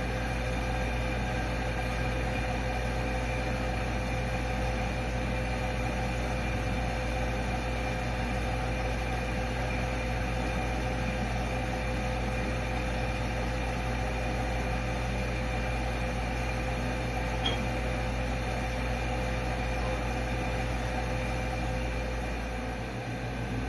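Steady machine hum with hiss running evenly throughout, a few faint steady tones within it and no distinct events.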